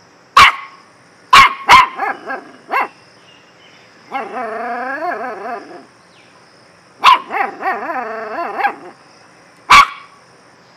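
A puppy barking in sharp yips: one bark about half a second in, two close together a second later, then a quick run of smaller yips. Around the middle comes a drawn-out call that wavers up and down in pitch, then another bark with a run of yips and a last single bark near the end.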